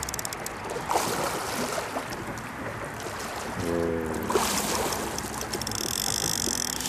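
Water splashing and lapping against a fishing boat's hull as a fish is played on a bent rod, with a short run of rapid clicks at the start.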